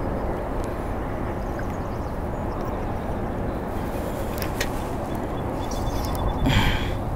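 Steady wind rumble on the microphone of a canoe on open water, with a couple of light clicks about four and a half seconds in and a short rattle about six and a half seconds in as fishing tackle is handled.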